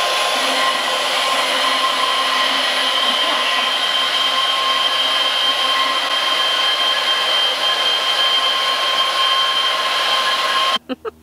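A small high-speed electric motor running steadily, a loud, even whine with a high hiss. It cuts off suddenly near the end.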